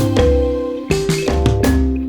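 Background music with a steady drum beat, deep bass and pitched mallet-like notes.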